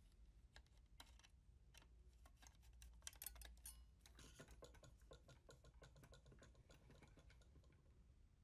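Near silence with faint, quick light clicks and ticks, thickest about three to four seconds in.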